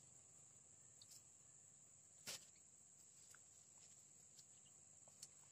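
Near silence with a faint, steady, high-pitched insect trill, with a few small clicks and a single sharp click about two seconds in.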